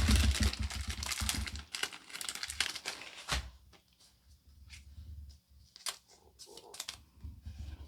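Foil wrapper of a Pokémon card booster pack crinkling and tearing as it is opened, dense for about the first three seconds, then only a few scattered clicks and light rustles.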